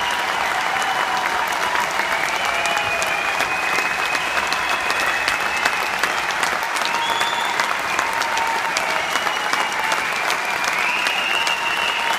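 Large theatre audience applauding steadily through a curtain call, a dense patter of many hands clapping, with a few long, wavering high tones over the clapping.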